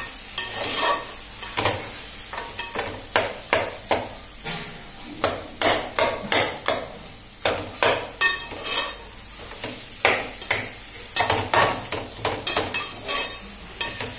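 A metal ladle scraping and knocking against an aluminium pot as sliced potatoes and fenugreek leaves are stir-fried, in quick, irregular strokes.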